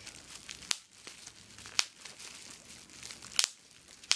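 Small-bubble plastic bubble wrap being squeezed and twisted by hand, crinkling steadily, with a few sharp pops as bubbles burst.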